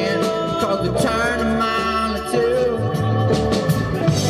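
Live rock band playing: acoustic and electric guitars, bass and drums.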